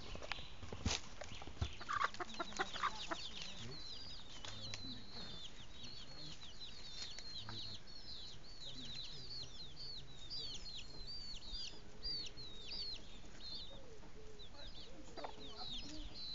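Brood of chicks peeping, a rapid string of short high chirps that starts a few seconds in and thins out near the end, with a hen's lower clucks mixed in. A few sharp knocks come in the first seconds.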